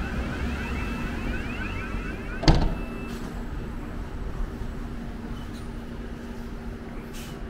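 A London bus idling while its door warning chirps rapidly, then the doors shut with a loud thud about two and a half seconds in.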